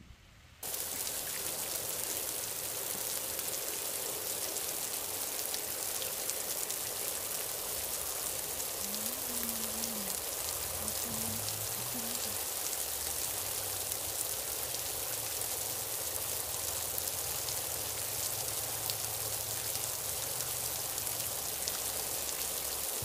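Steady rain falling on a camp tarp overhead and the gravel around it, an even hiss that starts about a second in.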